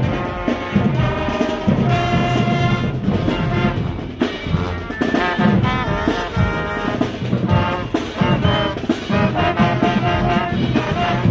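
High school marching band playing, with brass (trumpets and trombones) carrying sustained notes over drums.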